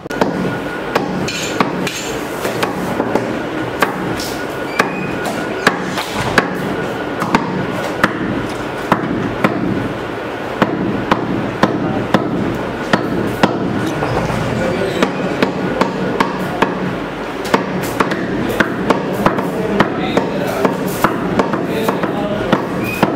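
Meat cleaver chopping beef into small pieces on a wooden chopping stump: repeated sharp, irregular strikes, roughly one or two a second, over a steady background din.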